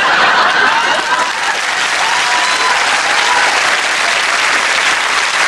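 Large studio audience applauding steadily, with a few voices calling out above the clapping in the first half.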